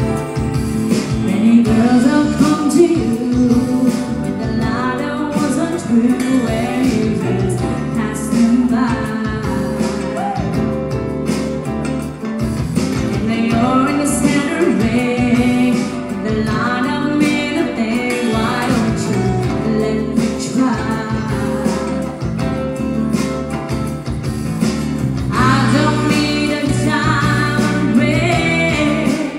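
Live band music with a woman singing lead through a handheld microphone, backed by electric guitar and keyboard, amplified through the stage speakers.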